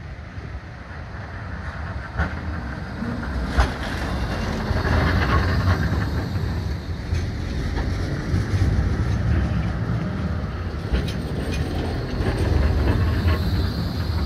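Bombardier Flexity 2 tram approaching and passing close by, its wheels rumbling on the rails, with a few sharp clicks. The rumble grows louder over the first few seconds and stays loud as the cars go past, and a high whine comes in near the end.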